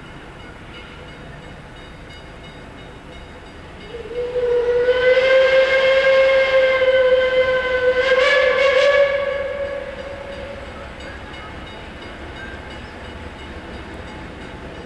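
Steam locomotive whistle, one long blast of about five seconds that lifts slightly in pitch near the end before fading, sounded as the train approaches the School Road level crossing.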